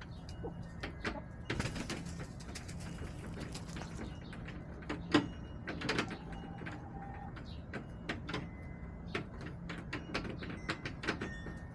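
Backyard hens moving about in the coop: scattered sharp taps and clicks, a stretch of rustling from about two seconds in lasting about two seconds, and a soft short hen call just past the middle, over a steady low hum.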